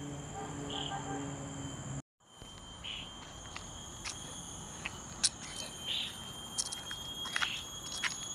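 Insects in roadside forest calling with a steady, high-pitched whine, with scattered short clicks. It drops out briefly about two seconds in.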